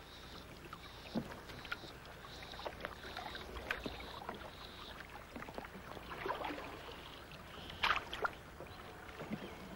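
Canoe on calm water: faint paddle splashes and drips with light knocks on the hull, and two sharper splashes about eight seconds in.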